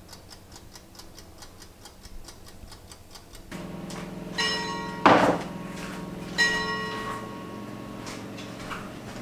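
Fast, even ticking, like a kitchen timer counting down. About three and a half seconds in a steady hum starts, and two ringing chimes follow about two seconds apart, with a loud knock between them.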